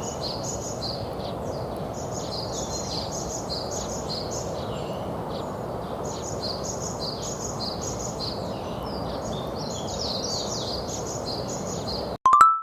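Small birds chirping busily over a steady outdoor background noise. Near the end this cuts off abruptly and a few plucked music notes start.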